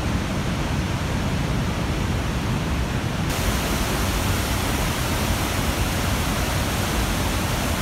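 Roar of river rapids in flood, a steady rush of water echoing off a curved cliff face. The hiss turns brighter about three seconds in.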